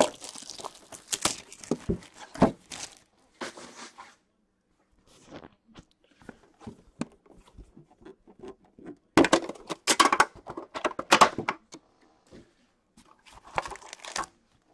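Cellophane wrap being torn and crinkled off a sealed Upper Deck hockey card box, and the cardboard box handled and opened by hand. The sound comes in separate crackly bursts with a quiet stretch in the middle.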